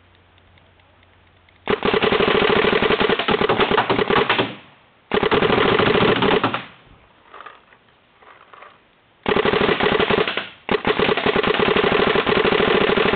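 Smart Parts Ion electropneumatic paintball marker firing long strings of rapid shots, set to ramp at about 17 balls per second. There are four bursts of a second and a half to three seconds each, with a pause of a couple of seconds in the middle, and the last burst runs on past the end.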